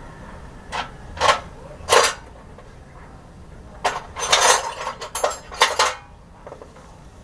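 Hand tools and metal parts clinking and clanking: a series of short sharp knocks, a few early on and a busier cluster in the middle, over a faint steady hum.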